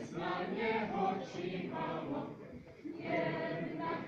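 A group singing a Czech folk song in unison, with no instruments, as the song for a circle dance. There is a short break between sung lines about two and a half seconds in.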